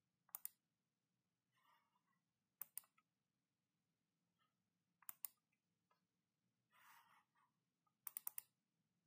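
Computer mouse clicks, quiet and in quick pairs a couple of seconds apart, ending with a run of four clicks; a faint soft rustle just before the last run.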